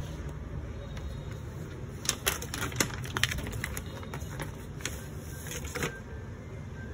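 Plastic bag crinkling and crackling as it is torn open and handled, with a cluster of sharp, irregular crackles from about two seconds in that stops near the end.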